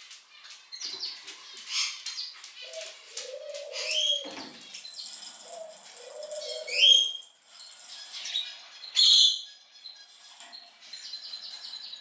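Young cockatiel chirping and calling in short rising and falling notes, with a short loud rustle about nine seconds in.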